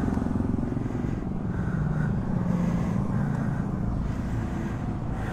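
BSA Gold Star 650's single-cylinder engine idling at a standstill, with road traffic passing.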